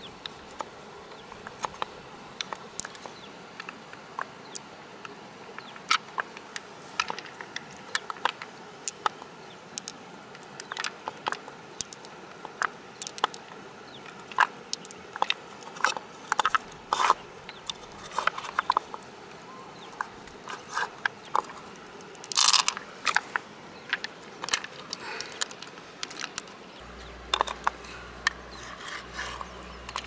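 Irregular light clicks and wet crunchy handling: pearls clicking against one another in the palm and against the shell as fingers work them out of the soft flesh of an opened freshwater mussel. A low rumble joins near the end.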